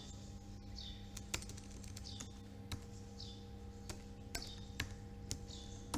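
Computer keyboard keys pressed one at a time: scattered sharp clicks about every half second to a second, over a faint steady electrical hum.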